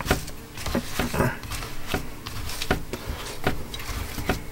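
Irregular knocks and rustling, about two or three a second, as knuckles press puff pastry down into a small metal pie tin.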